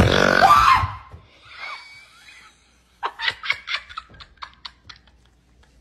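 A sudden loud startled yell as the scare lands, then, about three seconds in, a run of short rhythmic bursts of laughter lasting about two seconds.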